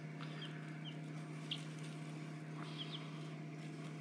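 Week-old Easter egger chicks peeping faintly: a few short, high peeps scattered through the moment, over a steady low hum.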